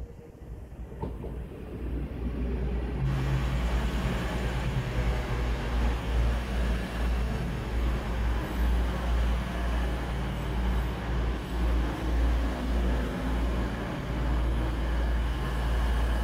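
A diesel train running close by. A deep engine rumble with a steady hum builds over the first three seconds, then stays loud and steady with a hiss over the top.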